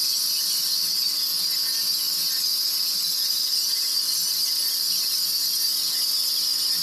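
Pressure washer wand spraying water onto concrete pavers, a steady loud high-pitched hiss with a faint steady hum underneath.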